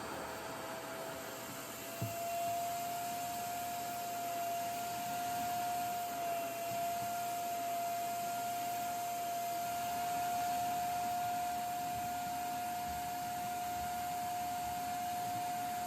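Revair reverse-air hair dryer running, a steady rush of suction air with a steady whine. A light knock about two seconds in, after which it runs slightly louder and higher.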